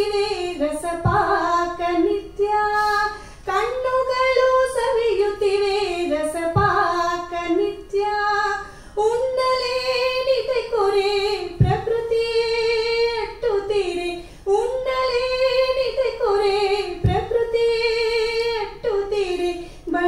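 A woman singing a Kannada mukthaka solo to a melodic tune, in phrases a few seconds long with long held notes and sliding pitch.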